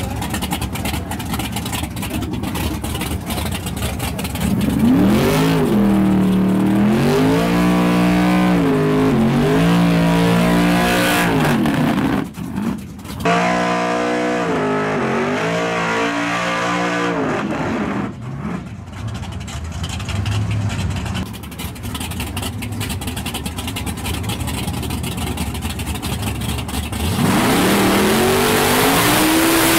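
Drag-race car engines revving hard in repeated bursts, the pitch climbing and falling several times, with breaks between clips. Near the end, the Fox-body Mustang's engine revs up and holds a high, steady pitch as its burnout begins.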